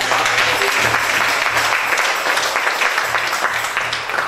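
Congregation applauding, many hands clapping steadily, easing off slightly near the end.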